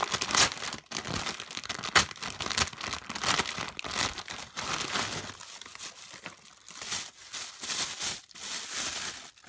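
A squishy toy's packaging being opened by hand, crinkling and tearing in quick, irregular crackles. The crackles are busiest in the first half and thin out later.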